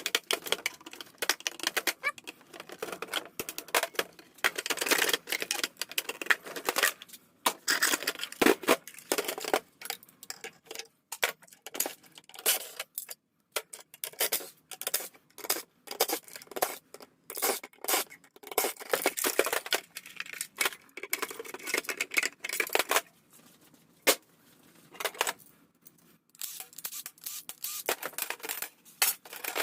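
Hand tools and small metal and plastic parts clicking, scraping and rattling as scrap is taken apart by hand, in a quick irregular run broken by a couple of short pauses.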